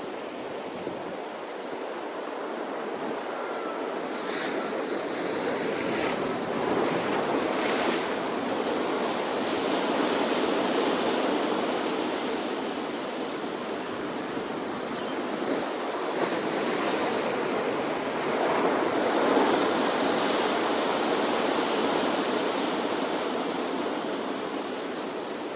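Ocean waves breaking and washing up a shore, a continuous surf that swells and eases over several seconds, with brighter hissing washes about a quarter of the way in and again past the middle.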